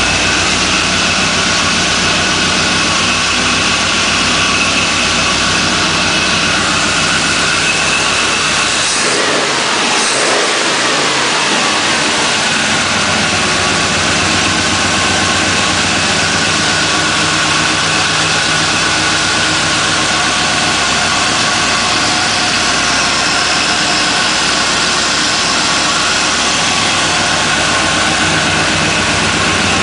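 Chevrolet 350 small-block V8 in a 1963 Chevy C-10 chassis running steadily on its headers and temporary exhaust, freshly started after sitting about four months. About nine seconds in its pitch briefly rises and falls once.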